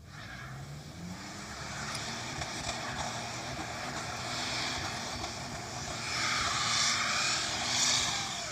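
An engine running steadily under a rushing hiss that swells about six seconds in.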